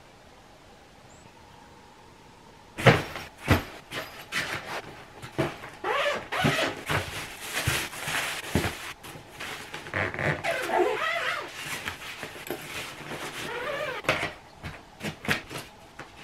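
Packing a hard-shell suitcase: plastic bags and clothes rustling, with irregular knocks and clicks against the case. It starts with a sharp knock about three seconds in, after a faint room tone.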